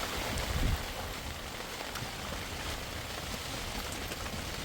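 Steady rain falling, with a low gust of wind buffeting the microphone about half a second in.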